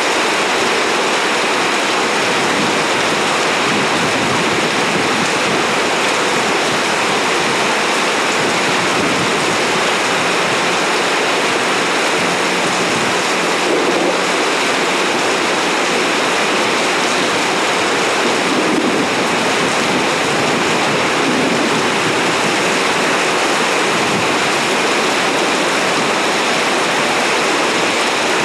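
Heavy rain pouring down in sheets: a loud, steady, dense hiss with no letup.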